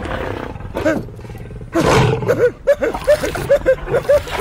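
A lion growls, loudest about two seconds in, followed by a quick run of short, high, rising-and-falling whimpering cries, about three a second.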